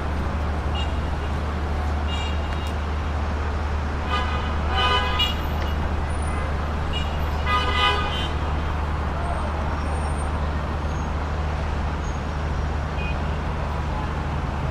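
Dense city traffic in a jam: a steady low engine rumble under road noise, with car horns honking several times, loudest about four to five seconds in and again about eight seconds in.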